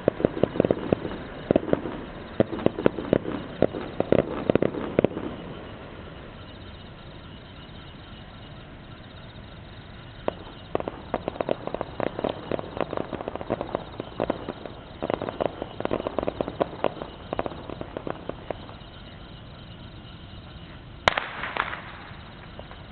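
Fireworks crackling: dense runs of many rapid small pops in three stretches, with quieter pauses between. Near the end comes one sharper bang, followed by a brief crackle.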